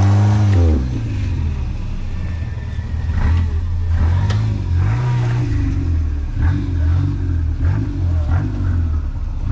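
An off-road rock crawler's engine running and revving in short blips, its pitch swelling and falling several times as it works over a rock obstacle.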